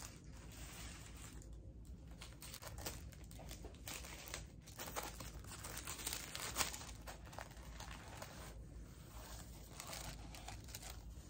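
Tissue paper in a gift box rustling and crinkling in short, uneven rustles as it is folded back and pulled aside, with a cloth dust bag being lifted out.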